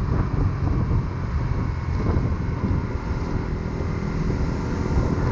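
150 cc single-cylinder underbone motorcycle engine running steadily while riding along the road, with wind buffeting the microphone.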